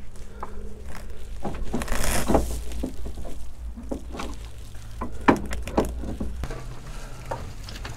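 Scattered metal clicks and knocks as the rear brake and hub parts of a Honda Deauville 650 are handled and shifted against the swingarm, with a scraping rustle about two seconds in and two sharper knocks a little past halfway.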